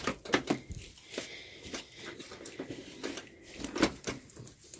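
Handling noise: a string of irregular clicks, taps and rustles as parts and tools are handled.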